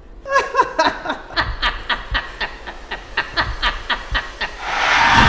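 A person laughing slowly, a long run of short "heh" pulses about four a second that fade out over four seconds. Near the end a loud hissing rush starts.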